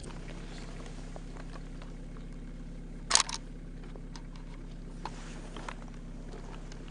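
A steady low mechanical hum, with one sharp click about three seconds in and a few fainter clicks and taps.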